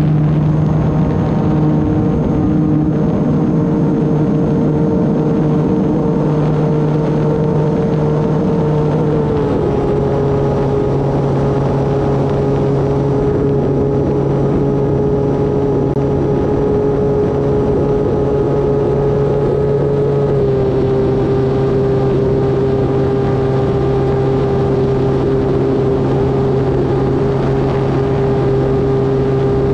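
Electric motor and propeller of an E-flite Turbo Timber Evolution RC plane running at steady throttle: a steady whine with a faint high whistle above it. The pitch steps down slightly twice, about a third and two-thirds of the way through, as the throttle is eased back.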